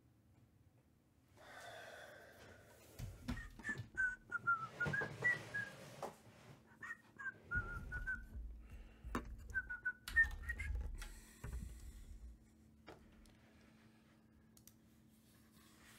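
A person whistling a wandering tune in several short phrases, with a few scattered clicks and knocks.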